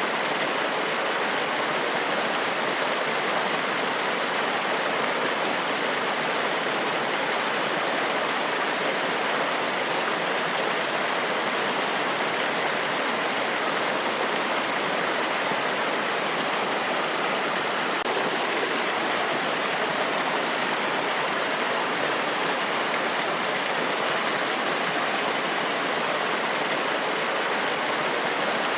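Small forest waterfall: water cascading over rocks in a steady, unbroken rush.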